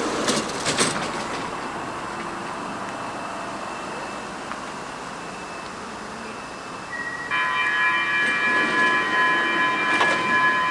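Stockholm metro train standing at a platform. A few knocks come in the first second as the doors are used. About seven seconds in, a steady warning tone of several pitches starts up from the train: the door-closing signal, which goes on as the doors shut.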